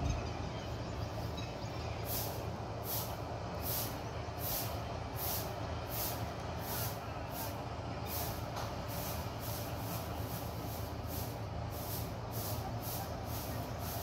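Vishal 435 combine harvester running as it harvests a standing grain crop: a steady engine and machinery drone, joined from about two seconds in by a high hiss that pulses about two to three times a second.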